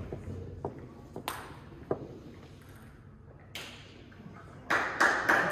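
Sharp taps of a ball being hit back and forth in a rally, about every 0.6 seconds at first. After a short lull, a quicker and louder run of taps comes near the end.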